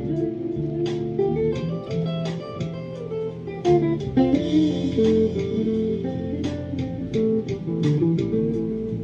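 Squier junior Stratocaster-style electric guitar being played, picked notes following each other several to the second in a flowing, unhurried line.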